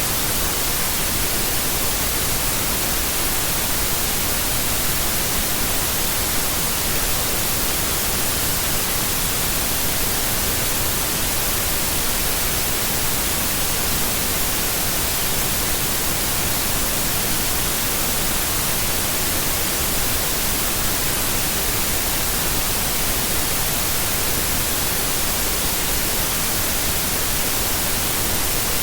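Steady white noise, an even hiss that does not change in level.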